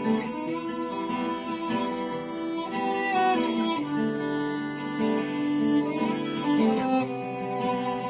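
Acoustic guitar and violin playing an instrumental passage: the violin holds long notes that step from pitch to pitch over a steady picked guitar pattern.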